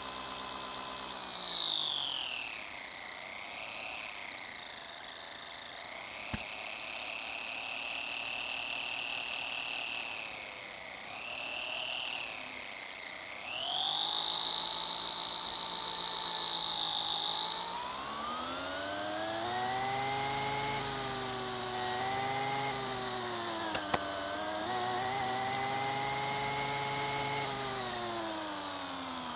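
RC car's electric motor and gears whining as heard from onboard, the pitch falling as it eases off about a second in, then climbing again around halfway and higher still a few seconds later, dipping and rising with the throttle.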